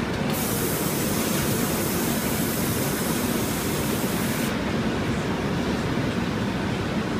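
A hand-held hose nozzle spraying at a hot gather of glass on a blowpipe: a steady hiss that starts just after the opening and cuts off about four and a half seconds in. Under it runs the steady roar of the glass furnaces.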